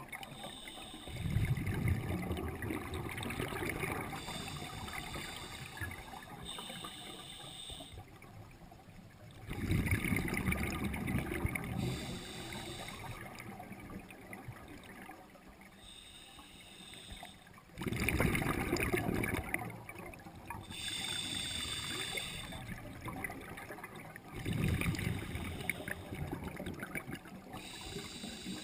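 A scuba diver breathing through a regulator underwater. Four times, roughly every eight seconds, there is a long rush of exhaled bubbles lasting two to three seconds. Between them come shorter, higher hisses of the regulator on each inhalation.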